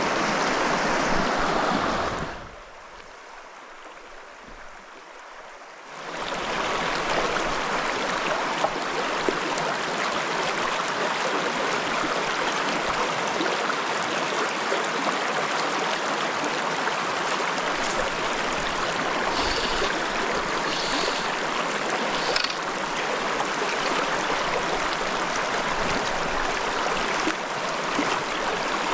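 Stream water rushing steadily. About two seconds in it drops to a faint hiss for a few seconds, then comes back at full strength.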